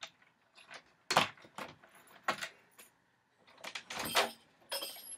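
Keys jangling and clicking at a door lock as the door is unlocked: a string of sharp metallic clicks and rattles, with a longer rattle about four seconds in.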